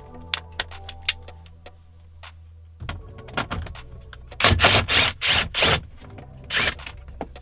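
A 7 mm socket wrench taking out bolts under a truck's instrument cluster: scattered metallic clicks, then a few louder rasping strokes about halfway through as the socket is worked.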